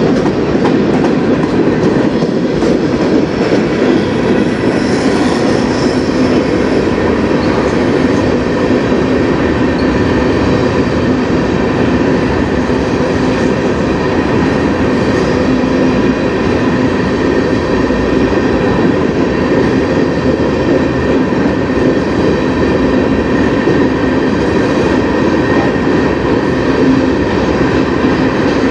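Freight cars of a manifest train rolling past close by at steady speed: a continuous loud rumble of steel wheels on rail, with faint steady high tones riding over it.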